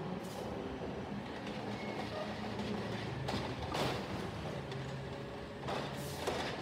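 Natural-gas side-loader garbage truck idling with a steady hum while its automated arm lifts and empties a cart. Two short hissing noises cut across it, about three and a half seconds in and again near six seconds.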